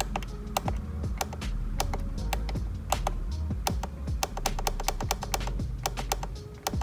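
Background music with a steady low bass line and a rapid run of sharp clicks.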